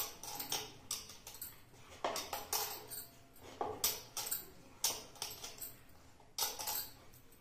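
Bangles clinking against one another and the ceramic bowl as a hand kneads damp poha, more than a dozen light clinks at uneven intervals.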